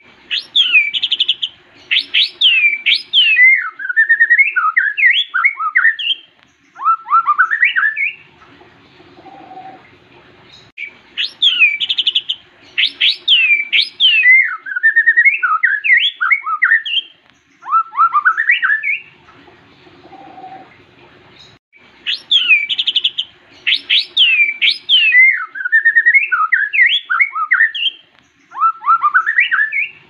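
White-rumped shama singing: loud, clear whistled notes sweeping up and down in a song phrase of about eight seconds, given three times with short pauses between.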